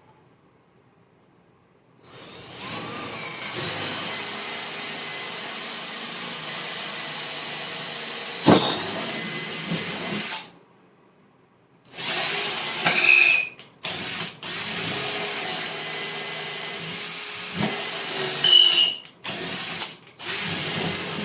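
Power drill boring holes through a wooden board. It runs for about eight seconds with a sharp knock partway through, stops, then goes in several shorter runs with brief pauses between them.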